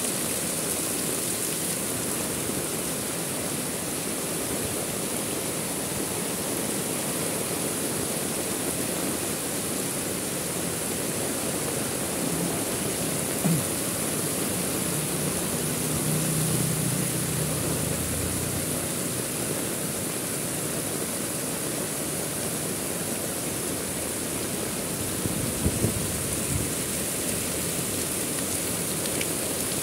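Heavy rain falling steadily, a dense even hiss with no let-up. A few sharp taps stand out, one near the middle and a quick cluster near the end.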